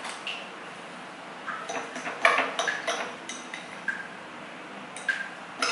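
Raw egg and chopped onion mixture being whisked in a glass bowl: a utensil clinks and scrapes against the glass in irregular strokes, some clinks ringing briefly, with short pauses between bouts.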